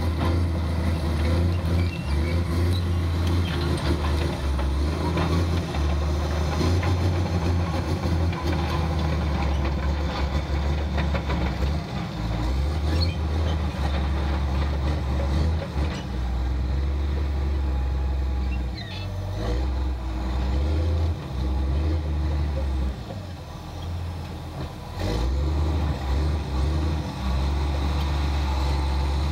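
Case 1450 crawler dozer's diesel engine running with a steady low drone, dipping in loudness for a moment a few times around two-thirds of the way through.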